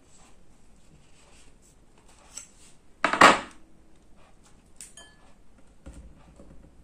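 Kitchen utensils handled on a countertop: one sharp clatter about three seconds in, then a light metallic clink with a brief ring about two seconds later, amid soft handling noise.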